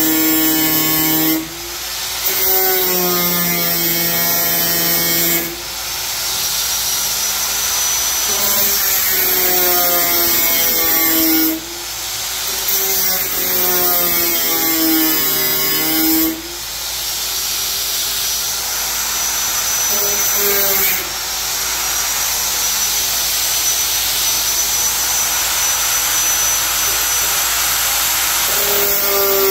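Angle grinder with an abrasive disc cutting through the steel hood of a 1996 Jeep Cherokee: a loud, continuous whine whose pitch sags and recovers as the disc bites, with five brief dips in level as the cut is eased off and resumed.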